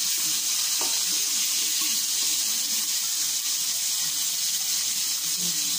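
Whole tilapia deep-frying in hot oil in a large aluminium wok: a steady sizzle.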